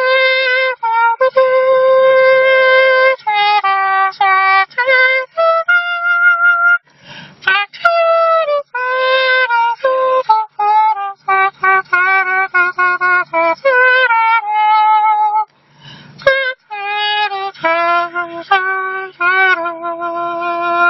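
A saxophone-like melody made with the mouth and cupped hands instead of an instrument: a single reedy pitched tone plays a tune of quick short notes and longer held notes. It has brief breaks about seven and sixteen seconds in.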